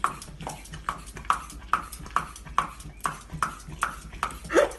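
A large dog licking at a corn cob held to its mouth: wet tongue smacks at a steady rhythm of a little over two a second, with a louder one near the end.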